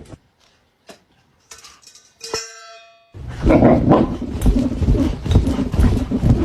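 A single metallic clang with a short ringing tail about two seconds in. About a second later a loud chorus of many dogs starts abruptly and keeps going.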